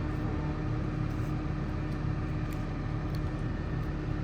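A heavy engine running steadily at a low, even pitch, typical of a crane's engine holding a load during a lift.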